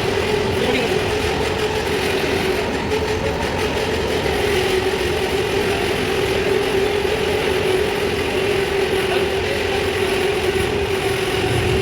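Newly installed electric arc furnace running during a steel melt: a loud, steady industrial noise with a constant hum over it.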